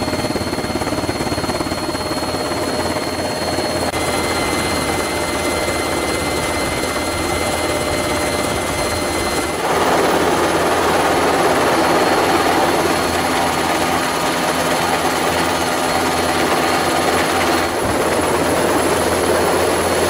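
Steady helicopter engine and rotor noise heard from inside the cabin, a dense rushing sound with thin high whines over it. Its loudness and pitch shift a little about 4, 10 and 18 seconds in, and it is loudest from about 10 seconds on.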